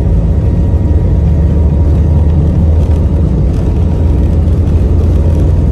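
Airbus A320 jet engines running at high thrust on the takeoff roll, heard from inside the cabin as a loud, steady low rumble with a faint steady whine above it.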